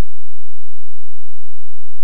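Loud, steady electronic buzz from an emulated Macintosh Plus's sound output: one unchanging tone with many overtones that does not vary.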